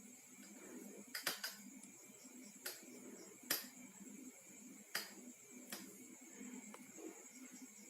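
Scattered light clicks and ticks, about six spread over several seconds, from handling the twisted-pair wires of a UTP network cable while straightening and evening them, over a faint steady hum.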